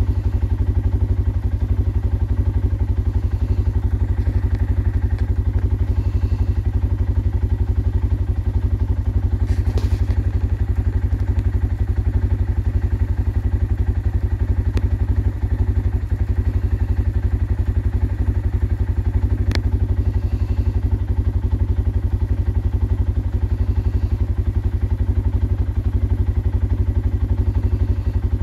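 ATV engine idling steadily close by, a low, even rumble that does not change, with a few faint clicks.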